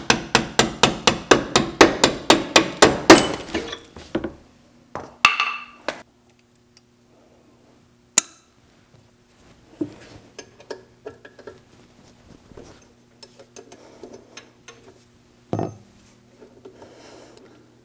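A hammer striking rusted steel on an old truck's front end in a fast, even run of about twenty blows, about five a second, the hardest near the end. After that come scattered clinks and knocks of hand tools on metal over a steady low hum that starts about four seconds in.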